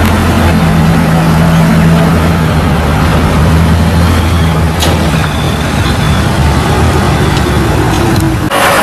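Heavy diesel truck engine running at low, steady revs with a deep drone as the tanker pulls through mud. The drone eases a little in the second half, and there is a sharp click about five seconds in.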